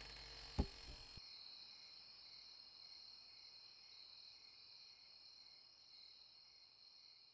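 Faint steady chirring of crickets. About half a second in there is a single dull thump, and a low rumble with hiss cuts off suddenly a little over a second in, leaving only the crickets, which slowly fade.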